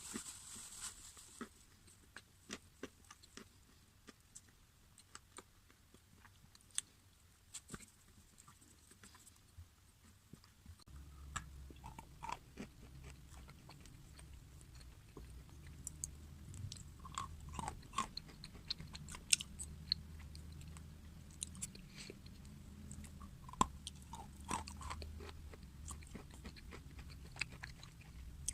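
Close-miked crunchy food being bitten and chewed, with many sharp, irregular crunches. A low steady hum joins about eleven seconds in.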